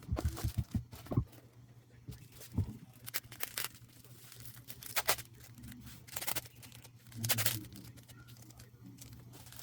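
Hands handling an album package: a quick run of taps and clicks near the start, then scattered short rustles and tearing of plastic and paper wrapping, over a steady low hum.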